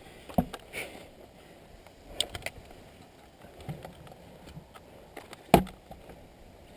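A few scattered short clicks and knocks close by, a small cluster of them a little after two seconds in and the loudest, a dull thump, about five and a half seconds in, over a faint steady outdoor background.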